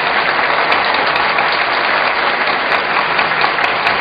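Studio audience applauding steadily as the game-show host comes out.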